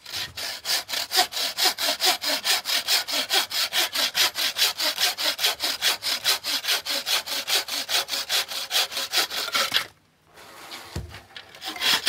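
Homemade pine-frame bucksaw with a Bahco blade cutting a seasoned oak log by hand: quick, even rasping strokes that stop about ten seconds in, followed by a low thump.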